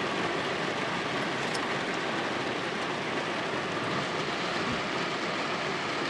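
Heavy rain falling steadily, an even unbroken hiss of water on hard surfaces.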